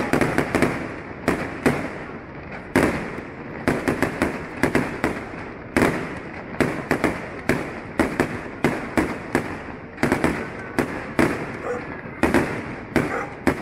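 Aerial firework shells bursting in a rapid, uneven string of sharp bangs, several a second, with crackling between them.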